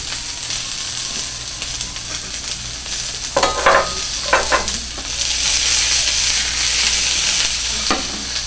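Chicken pieces frying in oil in a skillet, a steady sizzle that swells about five seconds in. A few short knocks of a utensil in the pan at about three and a half to four and a half seconds.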